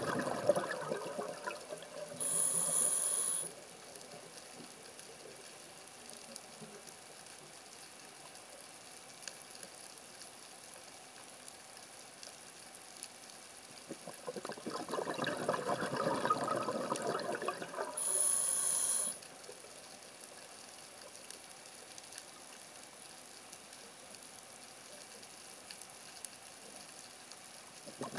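A scuba diver breathing on a regulator, heard underwater: exhaled bubbles gurgling out, then a short hissing inhalation through the demand valve. This comes twice, at the start and again past the middle, with long quiet pauses between breaths, and the bubbles start again right at the end.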